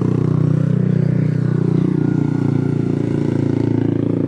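A motor vehicle's engine running close by, loud and low, its pitch gliding slightly up and down.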